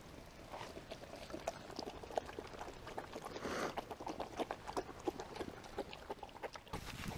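Several dogs, Australian Shepherds and a Bloodhound, lapping water together: a faint, irregular patter of small wet clicks.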